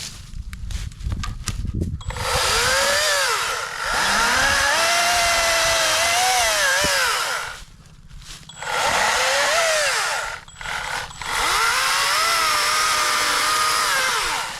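Atlas 40-volt brushless battery chainsaw cutting wood in about four runs of a few seconds each, with short pauses between. The motor-and-chain whine sags in pitch as the chain bites into the wood and recovers between cuts.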